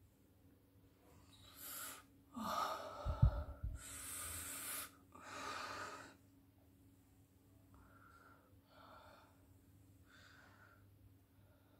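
A woman gasping and breathing heavily: four long, noisy breaths in the first six seconds, with a dull thump about three seconds in, then three softer breaths.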